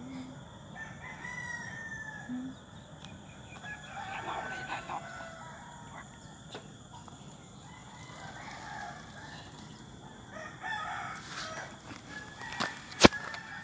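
Roosters crowing twice, about four seconds in and again near eleven seconds. A single sharp knock near the end is the loudest sound.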